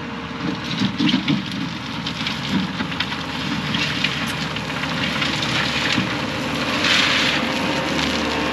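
Excavator engine running, with a crackling, rushing noise of dirt and gravel being moved that swells several times.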